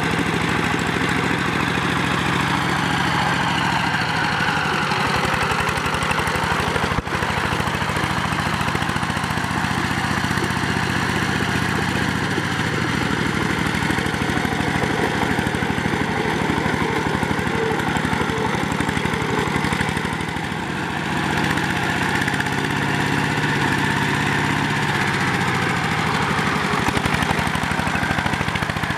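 Two-wheel power tiller's single-cylinder diesel engine running steadily under load with a rapid chugging beat. A brief drop-out comes about 7 seconds in, and around 20 seconds in the engine note dips and its pitch shifts for a few seconds before settling again.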